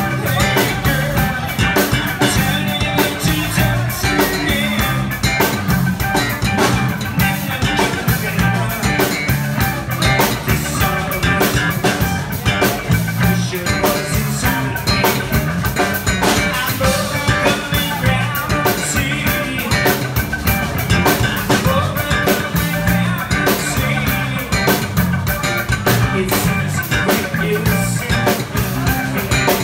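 Live rock band playing, with electric guitars over a steady drum-kit beat and a singer.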